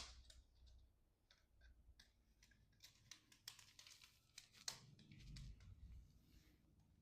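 Faint small plastic clicks and handling knocks, a scattered run of them through the middle, from fiddling with the toy excavator's remote control, working at its battery cover.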